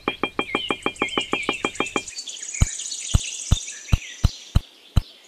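A fast run of even, sharp clicks, about eight a second, for about two seconds, then separate sharp knocks about three a second, with birds chirping behind them.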